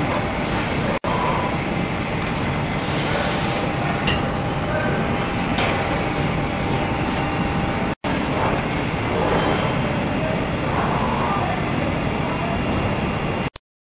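Steady mechanical running noise of a CNC press brake, with a couple of short sharp clicks in the middle. The noise drops out for an instant twice and stops just before the end.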